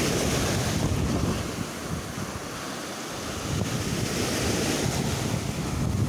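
Small sea waves washing up over a fine-pebble shore, the foam hissing as each wash swells, once at the start and again about four seconds in, with wind buffeting the microphone.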